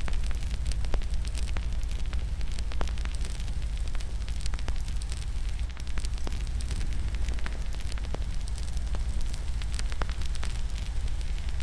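Wood fire in a fireplace crackling and popping, with a steady low rumble of the flames and frequent sharp, irregular pops.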